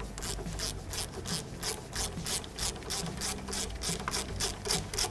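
Hand ratchet with an 18 mm socket backing a nut off, its pawl clicking in a steady run of about four quick strokes a second.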